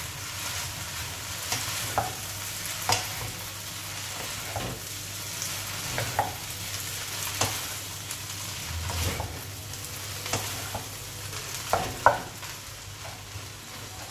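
Sauce-coated flat rice noodles (kway teow) sizzling in a wok as they are tossed with two wooden spatulas: a steady frying hiss with irregular knocks and scrapes of the spatulas against the pan, the sharpest near the end.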